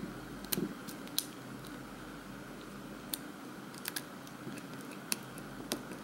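Lock pick and tension wrench working the pins inside a CoBolt 50mm padlock: sparse, irregular small metallic clicks as the hook pick lifts pins in a stiff cylinder that the picker thinks may hold security pins.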